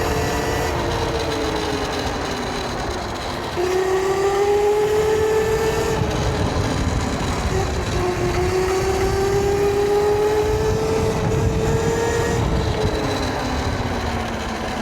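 YOZMA IN10 Pro electric dirt bike's motor whining as it rides uphill, its pitch sagging, then jumping up about three and a half seconds in and climbing slowly with speed, easing near the end. Under it runs a steady low rumble.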